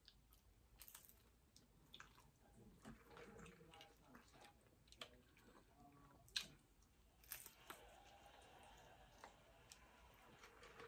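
A person biting into and chewing a crunchy fried egg roll: faint, scattered crunches and mouth sounds, the loudest crunch about six seconds in.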